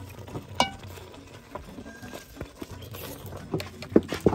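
A wooden paddle beating and stirring thick tuo zaafi dough of corn and cassava flour in an aluminium pot, making irregular slaps and knocks, the loudest near the end. A brief high chirp sounds about half a second in.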